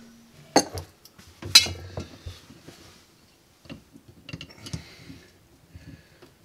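Metal clinks and taps of an adjustable (crescent) wrench being set on and worked against the dishwasher water-line fitting: two sharp clinks in the first two seconds, then lighter ticks.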